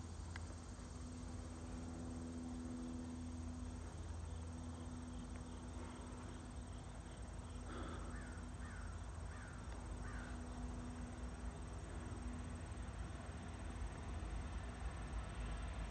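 Distant Norfolk Southern freight train led by GE Dash 9-44CW diesel locomotives approaching: a low rumble and a steady engine hum that grow louder near the end. A bird chirps four times about halfway through.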